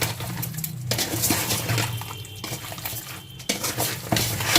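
Hands mixing raw chicken pieces with lemon juice, spices and mustard oil in a bowl: irregular wet squishing with knocks against the bowl, over a steady low hum.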